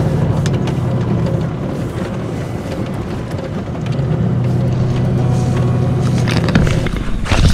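Vehicle engine and road noise heard from inside the cabin while driving slowly along a dirt track, a steady low hum that eases off about a second in and picks up again about four seconds in.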